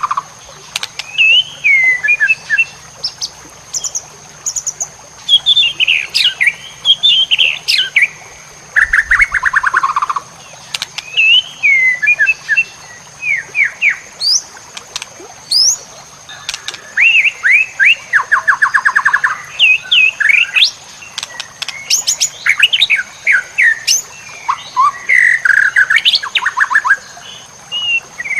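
White-rumped shama (murai batu) singing a long, varied song with many fills. Bursts of whistled slurs, rapid trills and chattering phrases follow one another with short pauses between.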